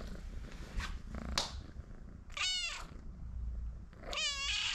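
A young domestic cat meows twice, two short high calls about two seconds apart, the second near the end, with a low purr running underneath.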